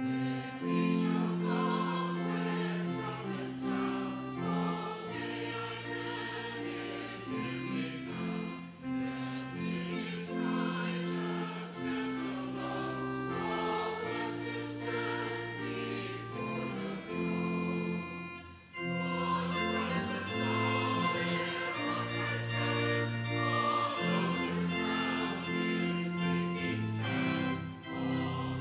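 Church choir singing with organ accompaniment, sustained chords moving from phrase to phrase; the music breaks off briefly about two-thirds of the way through, then goes on.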